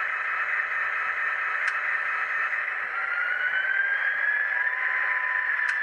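Sound-decoder diesel engine sound of an HO scale Austrains X Class model locomotive, played by an ESU LokSound Select decoder through a tiny 14 mm by 25 mm speaker, so it comes out thin with no bass. The engine note sags, then rises from about three seconds in as the revs change. Two short clicks, one near the middle and one at the end.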